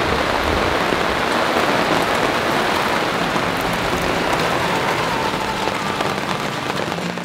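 Heavy rain falling steadily, a dense even patter on leaves and surfaces.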